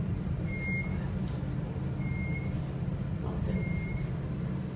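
Glass elevator car travelling with a steady low hum. A short high-pitched beep sounds three times, about a second and a half apart.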